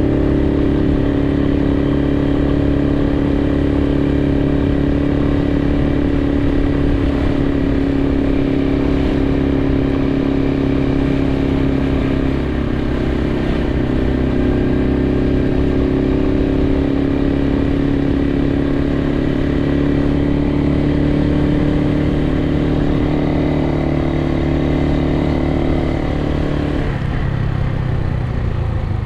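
Suzuki TU250X's single-cylinder engine running steadily under way; near the end the engine note drops.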